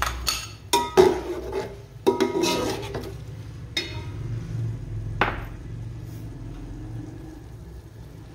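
Metal slotted spatula clanking and scraping against an aluminium cooking pot while tomatoes and green chillies are stirred into fried onions. The clanks come thick over the first four seconds, with one more about five seconds in, then the stirring goes quieter.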